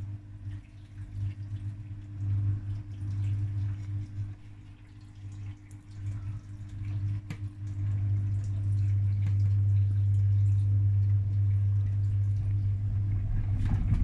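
Bosch front-loading washing machine: the motor hums low and steady as the drum turns wet laundry, with water sloshing. The sound builds slowly as the drum picks up speed toward the spin, and rough knocking starts near the end.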